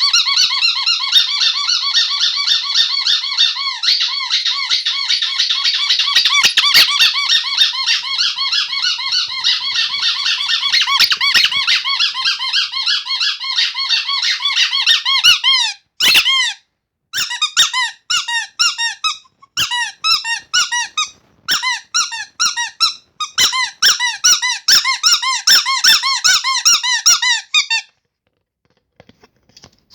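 Rubber squeaky toy squeezed over and over, giving rapid high squeaks several times a second, each rising and falling in pitch. About halfway through the squeaking breaks into short bursts with brief pauses, and it stops a couple of seconds before the end.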